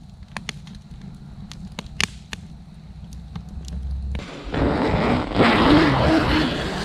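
Wood campfire in a steel fire ring crackling, with sharp irregular pops. About four seconds in it cuts off and louder rustling of tent fabric takes over as the tent door is opened.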